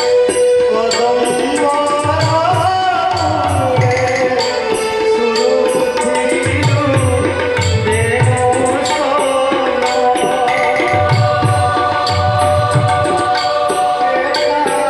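Devotional bhajan music: a tabla pair plays a running rhythm of sharp treble strokes, with clusters of deep bass strokes about every two seconds, under a held, gently gliding melody line on a keyboard.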